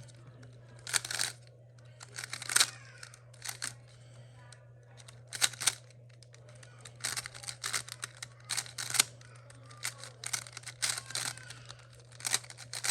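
Plastic speed cube being turned by hand during a solve: irregular runs of quick clicking and clacking layer turns with short pauses between, over a steady low hum.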